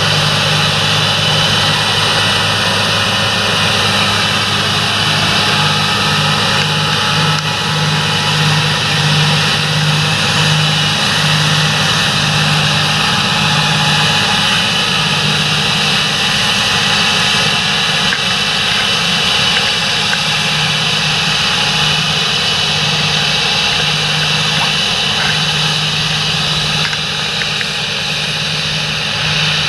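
Large John Deere tractor's diesel engine running steadily, with a low, even hum and a steady high hiss over it.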